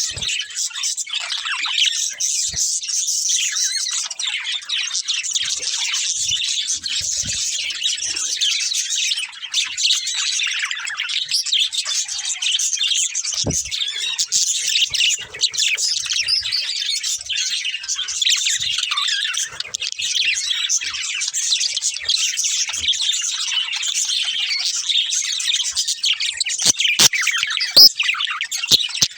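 Budgerigars chattering and chirping nonstop in quick, warbling high-pitched runs. A few short knocks come through the chatter, once about halfway and twice near the end.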